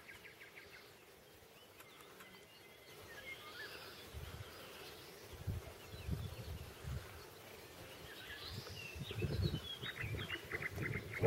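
Faint outdoor garden ambience: small birds chirping now and then, with a fast clicking trill near the end. Irregular low rumbles come and go from about four seconds in and are the loudest part.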